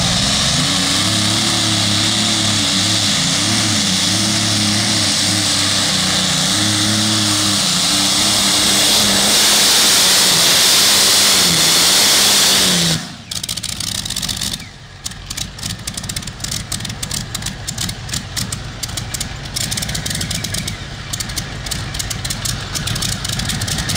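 A modified pulling tractor's engine runs wide open under load, its pitch wavering up and down. It cuts off abruptly about 13 seconds in, leaving a quieter, irregular crackling rumble.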